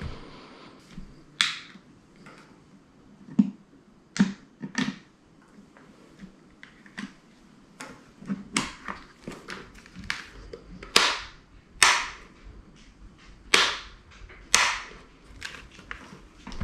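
Irregular sharp clicks, taps and short crackles of hard plastic helmet parts and plastic packaging being handled and set down on a stone countertop. They come more often and louder in the second half.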